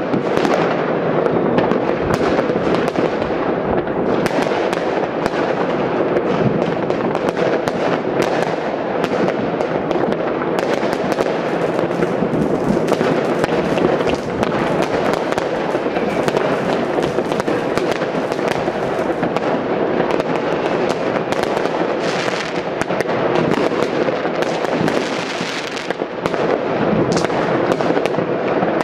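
Fireworks: many firecrackers and rockets going off at once, a continuous din of overlapping bangs and crackles with no pause.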